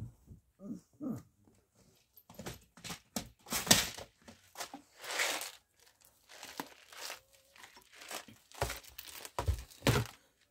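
Rummaging through craft supplies: irregular plastic crinkling and rustling, with a few dull knocks near the end as a plastic storage box is handled on the table.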